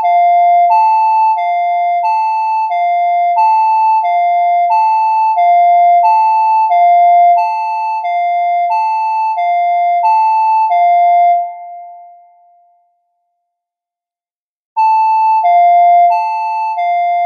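Emergency alert system alarm: two electronic tones, one high and one low, alternating about every two-thirds of a second. It fades out about 11 seconds in, falls silent for about three seconds, then starts again.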